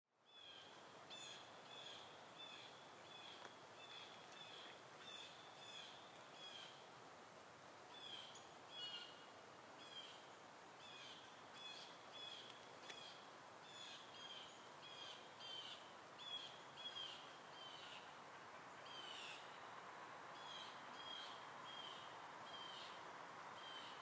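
A bird calling faintly with short, repeated chirps, one or two a second, some dropping in pitch. Beneath it is a steady low hum of distant outdoor background noise, which grows a little in the last few seconds.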